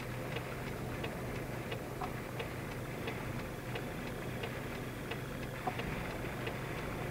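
A car's indicator relay clicking steadily, about three clicks every two seconds, over the steady low hum of the vehicle heard from inside the cabin.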